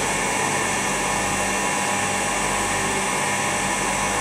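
Steady, unchanging machine hum and hiss.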